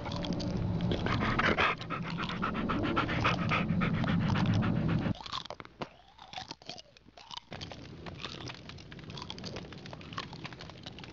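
Dog-like growling and panting from people playing feral children, with crunching and rustling among leaves. The loud growling cuts off suddenly about five seconds in, leaving quieter panting and rustling.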